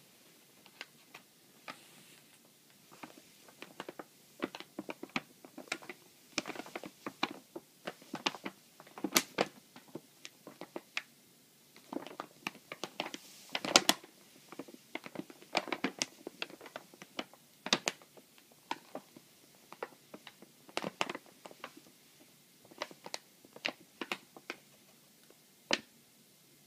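Paper shopping bag crinkling and crackling as a cat shifts about inside it: irregular sharp rustles and crackles, busiest in the middle and thinning out near the end.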